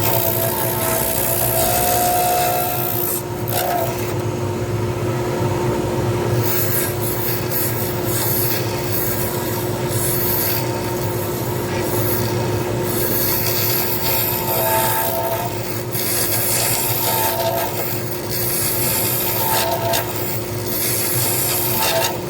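A pen-turning lathe spinning a resin pen blank with a steady motor tone, and a cutting tool scraping against the blank. The scraping eases off briefly a few seconds in, then carries on.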